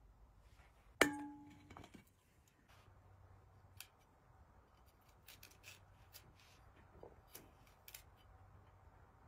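Large knife cutting through crisp green vegetable pieces held in the hand, a scatter of short snapping cuts in the second half. About a second in, a single sharp clink rings briefly and is the loudest sound.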